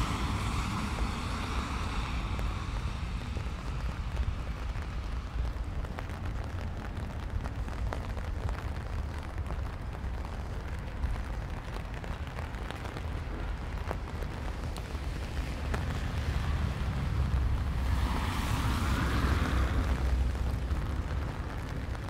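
Wind buffeting the microphone with a steady low rumble, over light rain. Tyre hiss from a car on the wet street fades away in the first second, and another swells and fades about eighteen seconds in.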